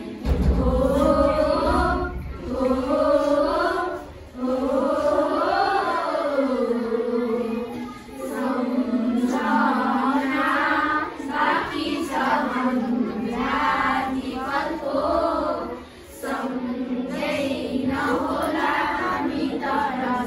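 A class of schoolchildren singing or chanting together in unison, in long melodic phrases with short breaks between them.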